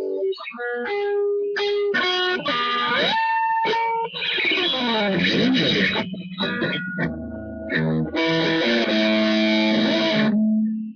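Electric guitar played solo: runs of single notes with pitch slides, short pauses, and a held chord that cuts off abruptly at the end.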